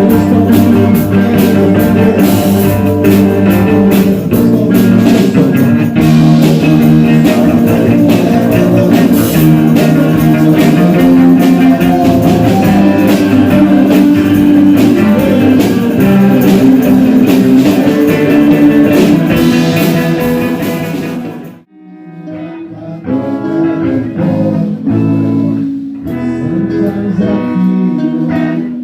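Band music with guitar and drum kit in a rock-blues style, which stops abruptly about three-quarters of the way in and is followed by quieter guitar picking without drums.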